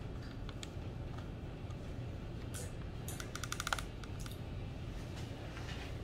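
Grooming shears snipping through a dog's head hair: scattered single snips, then a quick run of about a dozen fast metallic snips a little past halfway, over a steady low hum.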